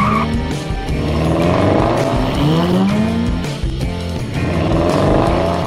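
Car engine sound effect revving up in repeated rising sweeps, as if running up through the gears at speed, over background music.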